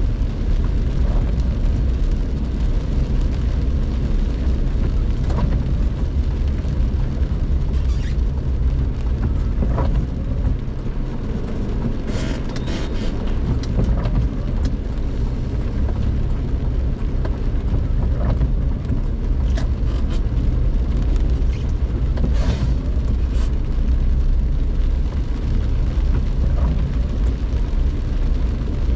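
Steady low rumble of a car being driven, heard from inside the cabin through a dashcam, with a few scattered clicks and knocks.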